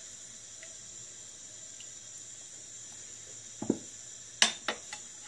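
A spoon stirring watery tomato soup base in a steel pot, faintly. It is followed by a dull knock about three and a half seconds in and a few sharp clicks near the end.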